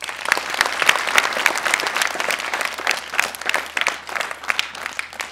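Audience applauding: many hands clapping in a dense patter that starts suddenly and thins out near the end.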